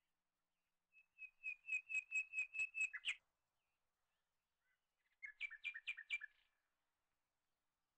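A bird chirping: a run of about ten quick, evenly repeated high notes, then after a pause of about two seconds a shorter run of five or six.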